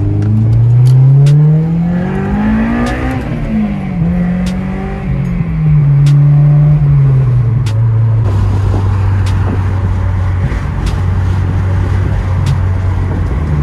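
Honda S2000's four-cylinder engine heard from inside the cabin, pulling up through a gear with rising revs for about three seconds, dropping at an upshift, then easing off to a steady cruising drone. Road and wind noise grow louder in the second half.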